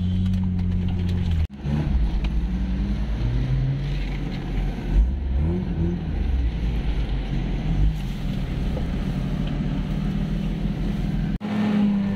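Off-road 4x4's engine heard from inside the cab, running at a steady note, then revving unevenly with its pitch rising and falling while driving a rough track. The sound cuts off abruptly about a second and a half in and again near the end.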